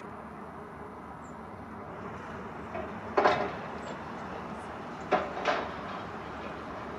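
Hydraulic demolition shear on a CAT excavator working steel struts over a steel skip, the excavator running steadily. A loud metallic clank with brief ringing about three seconds in, then two more clanks about five seconds in, a short moment apart.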